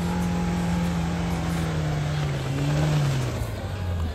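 Suzuki Jimny's four-cylinder petrol engine running hard under load as the 4x4 struggles through mud. Its pitch sinks slowly, lifts briefly about three seconds in, then settles lower near the end.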